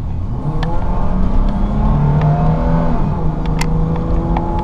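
Toyota Tacoma's 3.4-litre V6 accelerating hard under an automatic transmission, heard from inside the cab, its pitch climbing as the revs rise. A few sharp clicks sound over it, the loudest about three and a half seconds in.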